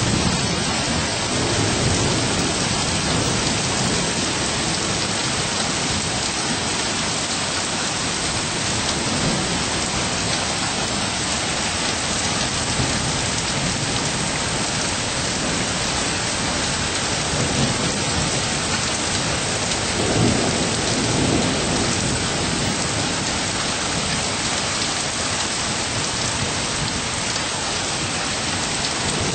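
Steady rain falling, with low rolls of thunder now and then; the clearest comes about two-thirds of the way through.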